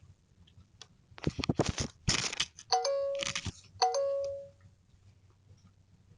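A squirrel scrabbling and scratching right at a video doorbell, its claws making rapid close clicks on the unit. Then the doorbell's chime sounds twice as the button is pressed, the second ring fading out over a moment.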